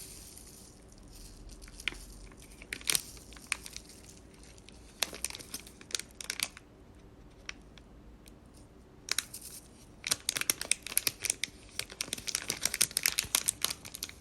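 Crinkling and rustling of the plastic packet of washing-machine cleaner powder being handled and emptied, scattered crackles at first, then dense rapid crinkling from about ten seconds in.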